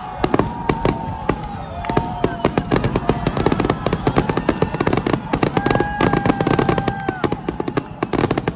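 Fireworks display with dense, rapid crackling and bangs. Several held whistling tones run through the crackle, the longest about five to seven seconds in.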